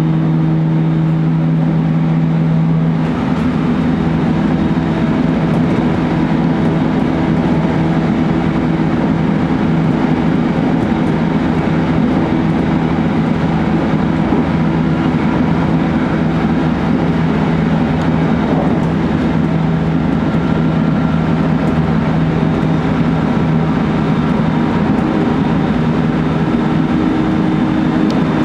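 JR Kyushu 813 series electric train running at about 110 km/h, heard from the driver's cab: a steady rumble of wheels on rail with a motor hum. About three seconds in, the low steady hum drops back and the hiss of the running noise grows.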